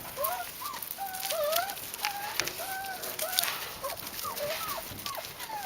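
Four-week-old Boerboel puppy whining: a run of short, high whimpers, about two a second, each rising and falling in pitch, over light scratchy clicks.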